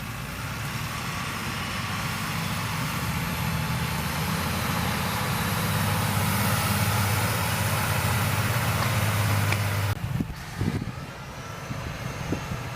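Heavy diesel farm machinery running during maize chopping, getting steadily louder as it draws closer. About ten seconds in the sound drops abruptly to a quieter engine with a few knocks.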